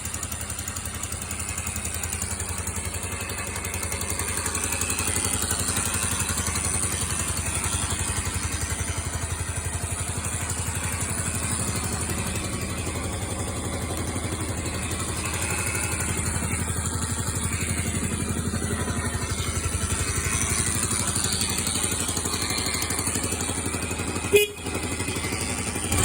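Yamaha YBR125's single-cylinder four-stroke engine running steadily, an engine the seller lists as having an abnormal noise. A single sharp knock sounds near the end.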